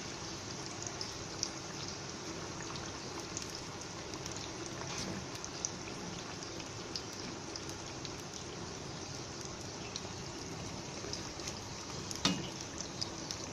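Cornflour-coated potato strips deep-frying in hot oil in a kadai: a steady sizzle with a scatter of small pops and crackles. One sharper click stands out near the end.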